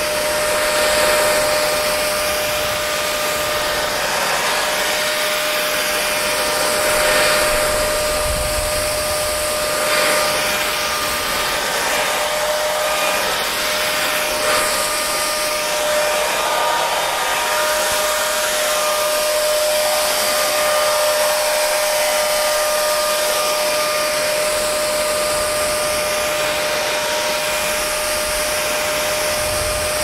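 Parlux 3500 hair dryer running steadily: a continuous rush of air with a steady whining tone under it.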